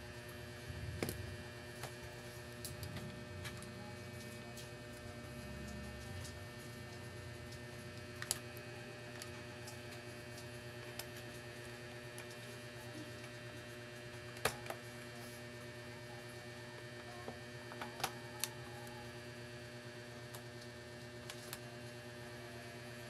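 Steady mains hum with a few sharp clicks and taps of a laptop's plastic case and screws being handled as it is opened up.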